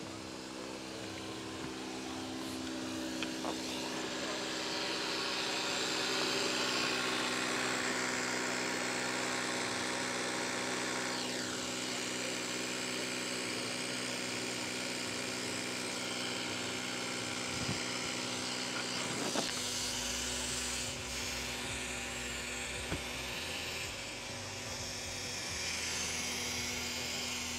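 Small portable electric air compressor running steadily with a buzzing motor hum, pumping up a flat ATV tyre.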